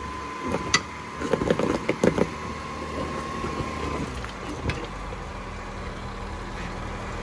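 Jeep Wrangler JKU engine running low and steady at crawling speed over rocks, with a few knocks in the first two seconds and another near the middle. A thin steady high tone runs alongside and stops about four seconds in.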